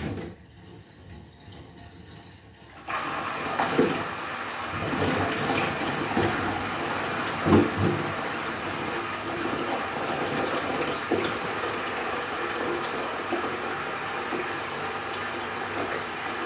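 Water from a hose running and splashing into a grooming tub as a cat is rinsed. The flow grows loud about three seconds in and then runs steadily, with a couple of brief splashes.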